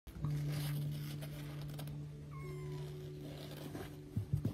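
Kitten mewing: a short, high, falling mew about halfway through, with a fainter one near the start, over a steady low hum. A couple of louder low thumps near the end.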